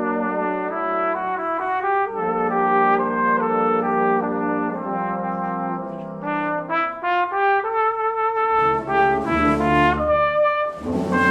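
Geneva Cardinal Professional cornet playing a melody of held and moving notes over lower sustained accompaniment. In the last few seconds deeper notes and a hissing wash join in.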